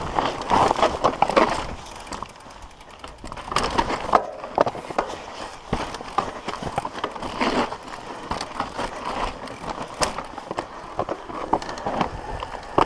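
Mountain bike descending a dusty dirt singletrack, heard up close from a camera on the bike: tyres rolling and scrubbing over loose dirt and roots, with the bike rattling and knocking over bumps.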